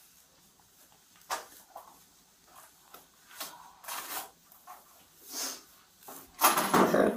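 Scattered faint rustles and light knocks of things being handled, then a louder stretch of rustling and scuffing for about the last second.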